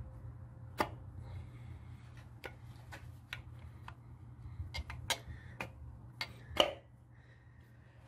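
Irregular light clicks and taps of metal engine parts being handled at the crankshaft and connecting rod of a MerCruiser 3.0 L four-cylinder, over a steady low hum. The loudest knock comes about two-thirds of the way in.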